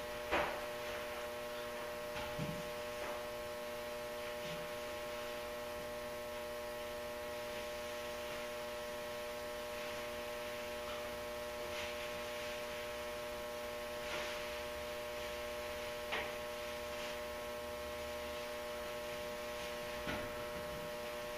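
Steady electrical mains hum in the room, with a few faint, brief swishes from a car hood being wiped down with glass cleaner and a towel.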